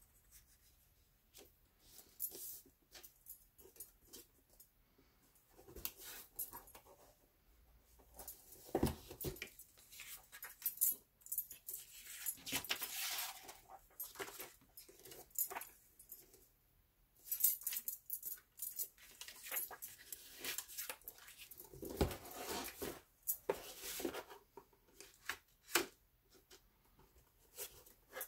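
Paper and card being handled and folded, with rustles coming and going and a couple of soft thumps, and the light clink of metal bangles on the wrist.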